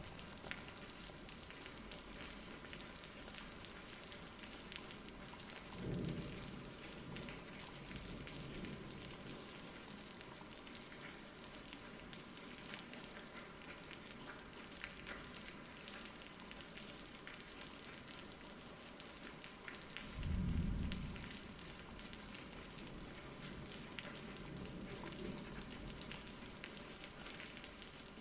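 Recorded rain falling steadily as a faint, even patter, with a low rumble of thunder about six seconds in and a louder one about twenty seconds in.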